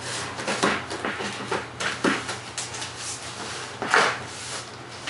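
Cardboard shipping box being opened by hand: the flaps are pulled up and rub against each other in a series of scrapes and rustles, loudest about four seconds in.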